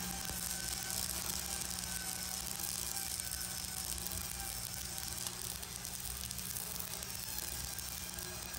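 Steel being arc welded: the welding arc crackles and sizzles steadily as a pipe handle is welded on, over a steady low hum.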